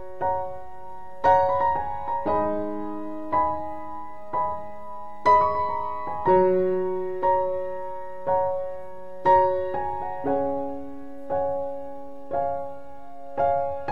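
Background piano music: gentle chords struck about once a second, each ringing and fading before the next.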